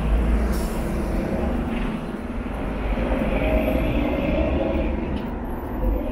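City street traffic, with a bus engine running close by: a steady low rumble, joined by a higher whine for a couple of seconds around the middle.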